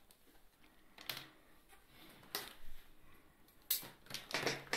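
Clear plastic blister packaging crackling and clicking as it is handled and turned over, in a few separate short crackles about a second apart.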